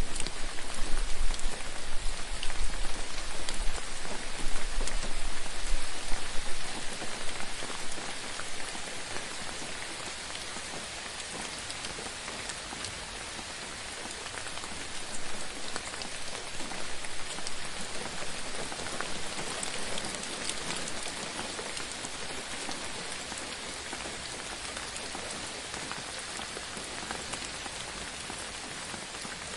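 Steady rain falling on a surface, a dense patter of fine drops. For the first six seconds or so it is louder, with a low rumble underneath, then it settles to a quieter, even patter.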